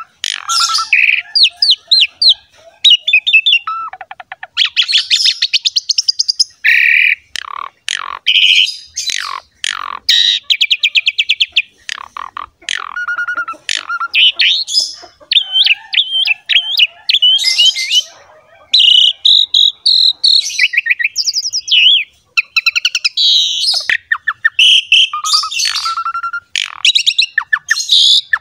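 Asian pied myna (jalak suren) in full, continuous song. It runs through rapid chattering trills, clear whistled notes and noisy scratchy calls in quick succession, with only brief pauses.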